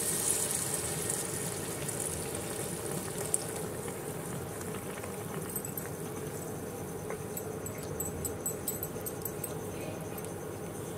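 Milk poured into a hot pan of ghee-fried grated bottle gourd, splashing and sizzling at first. The sound eases over the first few seconds as a wooden spatula stirs the bubbling milk.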